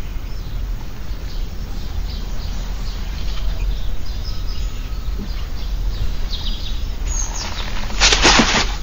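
Birds chirping faintly over a steady low background rumble, with a short loud rustle about eight seconds in.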